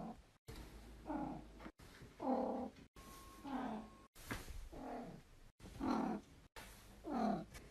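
Domestic cats meowing: about seven drawn-out meows one after another, each falling in pitch, with brief silent gaps between them.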